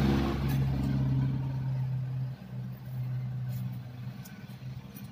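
A steady low engine hum that fades away gradually, with a few faint light ticks over it.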